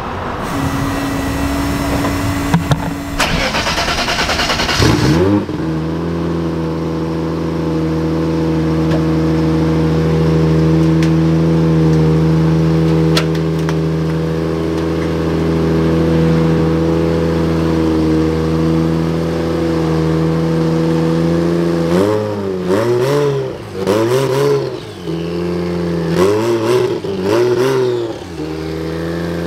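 Turbocharged BMW M50 straight-six in a drift car, cranked on the starter for about five seconds until it catches, then idling steadily. Near the end it is blipped several times, revs rising and falling quickly.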